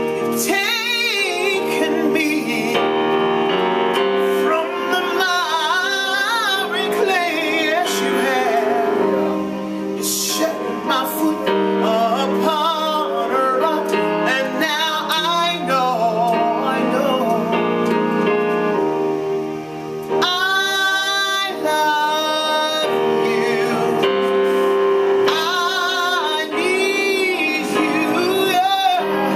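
Gospel worship music: a woman singing long, gliding vocal runs over sustained keyboard chords.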